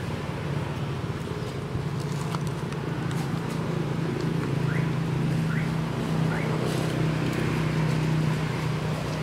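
A motor engine running steadily as a low hum, a little louder in the second half. Three short rising chirps come about a second apart in the middle.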